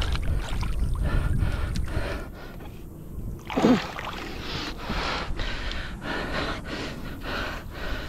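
Water and mud sloshing and splashing in irregular strokes as a man wades and wrestles a large fish in knee-deep mud, with his hard breathing and a short falling groan about three and a half seconds in.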